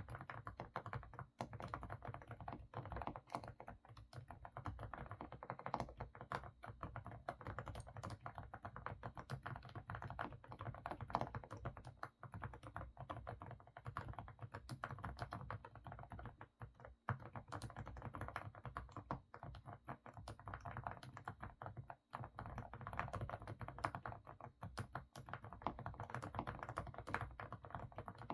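Fast, continuous typing on an AK68 mechanical keyboard with semi-silent 'Stepping Stone' switches. The key strokes are dense, full and muffled, with little sharp click on top.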